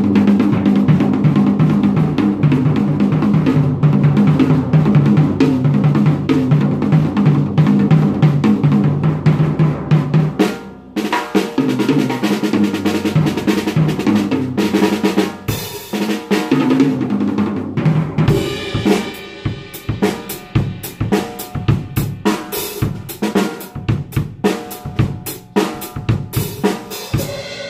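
Drum kit being played: fast, dense rolls across the drums for the first ten seconds or so, then separate snare and bass drum hits with cymbal crashes ringing on toward the end.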